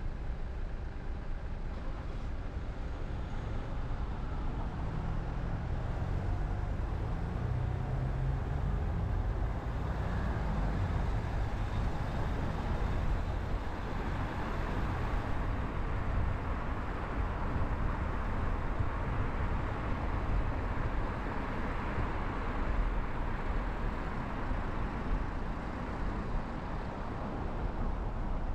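A car driving in city traffic: a low engine hum as it moves off from a stop, then steady tyre and road noise once it is under way.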